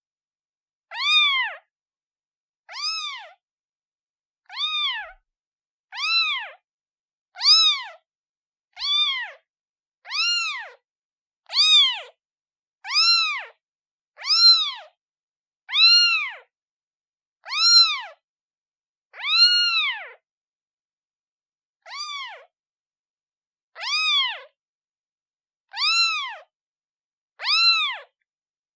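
Newborn kitten meowing over and over, calling for its mother. It gives about seventeen high, short meows, each rising and then falling in pitch, roughly one every second and a half, with a slightly longer pause about two-thirds of the way through.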